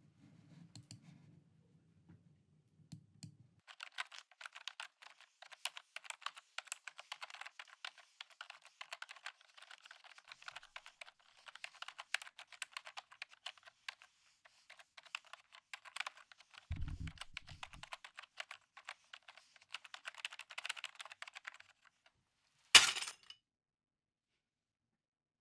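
Fast, irregular clicking like typing on a computer keyboard, with a short low thump partway through. Near the end comes one loud, sharp crack.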